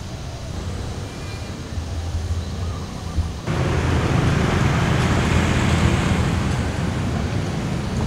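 Road traffic: a steady wash of passing-car noise with a low rumble underneath. It suddenly gets louder and fuller about three and a half seconds in.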